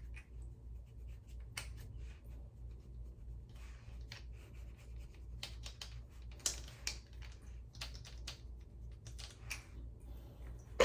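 Soft, irregular scratches and light clicks of a makeup brush working bronzer powder from a palette onto the face, over a low steady hum.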